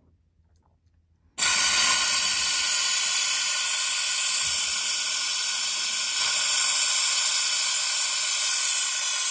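Compressed air rushing through an air-powered venturi vacuum coolant refill tool: a loud, steady hiss that starts suddenly about a second and a half in as the air valve is opened. It is pulling a vacuum on the L5P Duramax cooling system before refilling.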